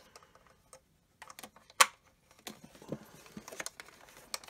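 Small hard-plastic clicks and taps as a toy spaceship's plastic steering bar is handled and pushed into the hole in its plastic cockpit. One sharper click comes a little under two seconds in, and a run of lighter clicks follows.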